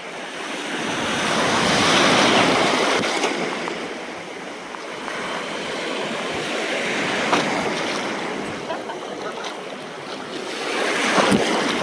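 Ocean surf breaking and washing up on a beach. The rush of water surges about two seconds in, eases off, and builds again near the end.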